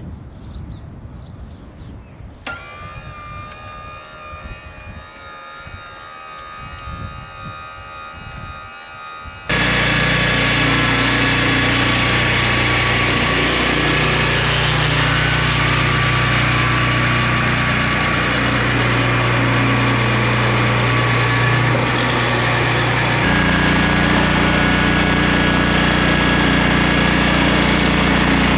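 Quieter rumble with a faint steady whine, then about ten seconds in a portable swingblade sawmill's engine comes in abruptly and runs loud and steady. Its note shifts slightly about twenty-three seconds in.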